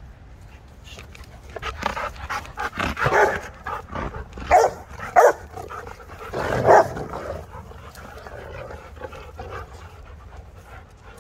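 Rottweilers playing rough: a flurry of short, loud barks and play noises between about two and seven seconds in, then quieter panting.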